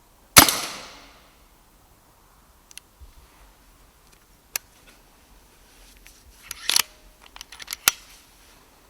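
Brocock Ranger XR pre-charged pneumatic air rifle firing a single shot about half a second in, a sharp crack that dies away quickly. Later, between about six and eight seconds in, a quick run of clicks and knocks from handling the rifle.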